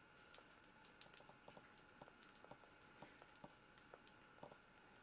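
Young red squirrel nibbling food off a fork on a plastic plate: faint, quick, irregular clicks of its eating, several a second.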